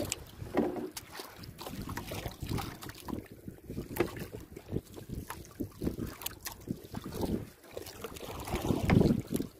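Wind buffeting the microphone and small waves slapping against the wooden hull of a drifting outrigger canoe, with a stronger gust near the end.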